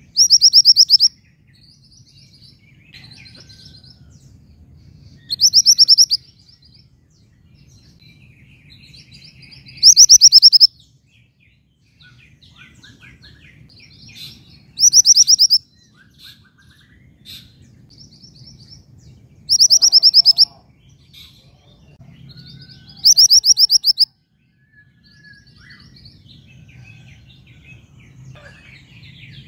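Female mantenan gunung bird giving a loud, rapid trilled call about every four to five seconds, six times, calling for a male. Softer chirps from other birds and a faint low hum fill the gaps.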